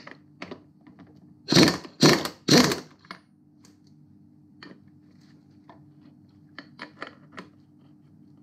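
Pneumatic impact wrench hammering in three short bursts, undoing a left-hand-threaded nut. Faint clicks of metal parts being handled follow.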